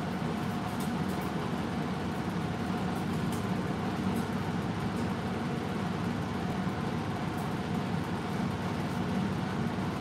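Steady mechanical hum with a faint constant tone, like a fan or other appliance running, with a few faint clicks over it.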